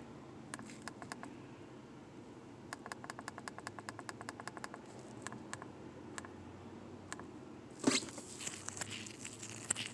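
Quiet clicking of buttons on a diagnostic scan tool being pressed to scroll through data, with a quick run of about eight clicks a second in the middle. A brief rustle near the end.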